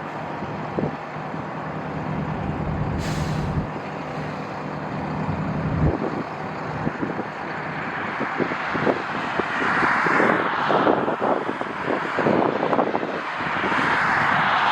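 Strong gusting wind buffeting the microphone, over a steady low engine hum that stops after about three and a half seconds, with a short hiss about three seconds in. From about eight seconds a jet airliner's engine noise swells, rising again near the end.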